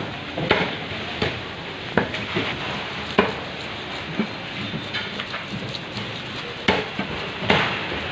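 Fish scaler rasping the scales off a red snapper: repeated scraping strokes over a steady hiss, with sharper scrapes at irregular intervals.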